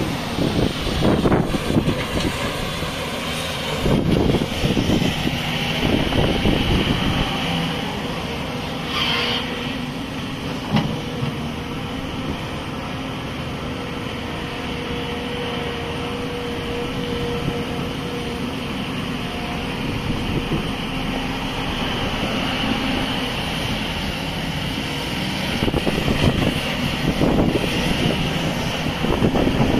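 Hyundai HX360L crawler excavator's diesel engine running as the machine digs and swings loads of soil. The sound rises and falls, louder and rougher about four to seven seconds in and again near the end.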